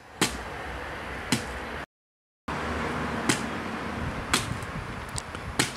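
Claw hammer striking a papier-mâché head mold filled with pasta sauce: sharp single blows, about one a second, five in all.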